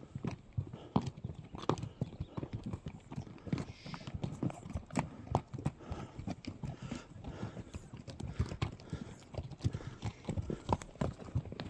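Horses' hooves clip-clopping at a walk on a dry, stony dirt trail: an irregular run of knocks from several horses moving together.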